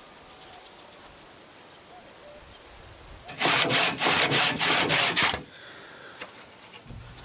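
Handsaw cutting through a round wooden post: a quick run of sawing strokes lasting about two seconds, starting a few seconds in.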